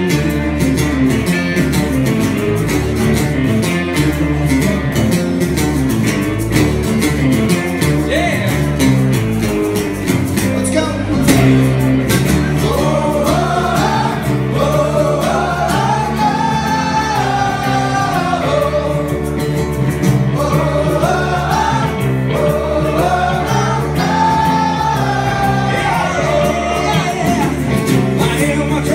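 Live acoustic rock song: strummed acoustic guitar and bass guitar playing, with a male lead vocal coming in about twelve seconds in.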